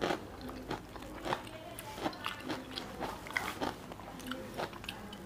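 Close-miked eating sounds: irregular short wet clicks and smacks of chewing, along with fingers pushing mutton curry off a plate onto rice.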